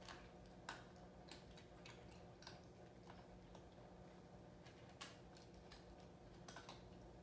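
Near silence: a faint low hum with light, irregular ticks and clicks every second or so.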